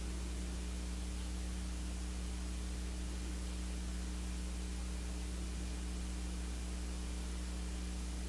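Steady electrical hum with a low buzz and its higher overtones, over constant hiss: recording noise.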